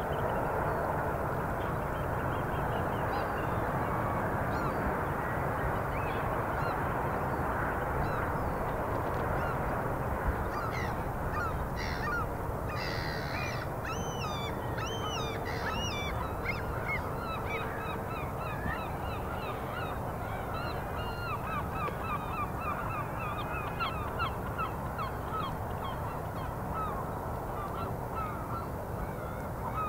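Outdoor ambience of a steady rushing background noise with birds calling. The calls become frequent about a third of the way in, as many short chirps that bend up and down.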